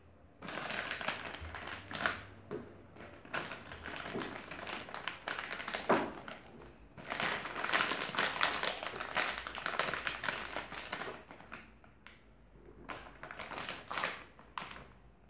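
Plastic candy packet crinkling and rustling in irregular spells, with light taps as marshmallows are tipped into a blender jar.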